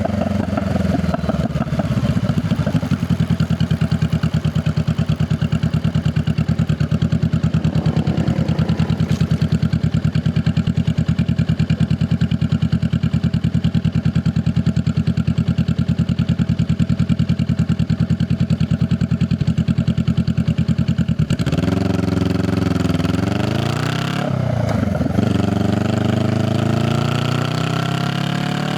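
Honda Rebel 500 parallel-twin engine with its exhaust loud and close: it slows down, idles steadily with an even pulse for about twenty seconds, then revs up and pulls away, with a brief drop in pitch at a gear change before rising again.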